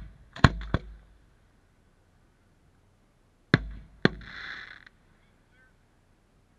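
Aerial firework shells bursting: two sharp booms close together about half a second in, then another pair about three and a half seconds in, the second followed by a short hissing noise.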